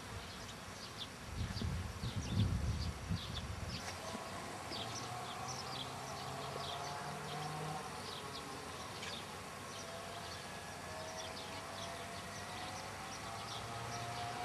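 Garden ambience: small birds chirping in short, scattered high notes, with a faint buzzing drone that slowly wavers in pitch from about four seconds in. A low rumble is heard in the first few seconds.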